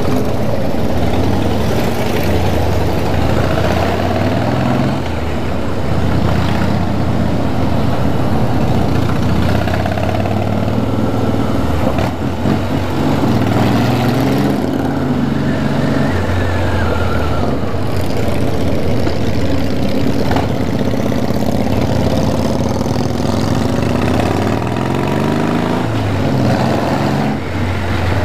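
Motorcycle engine running on the move, its pitch rising and falling several times as the throttle opens and closes and gears change.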